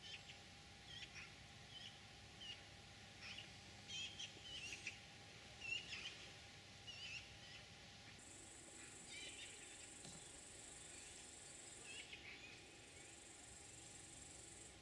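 Faint outdoor ambience: scattered short bird chirps and calls over the first half, then a steady high insect trill that starts about eight seconds in and pauses briefly near the end.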